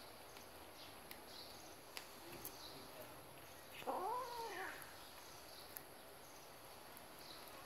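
A cat gives one short meow about four seconds in, rising then falling in pitch, over a few faint clicks of cats chewing fish.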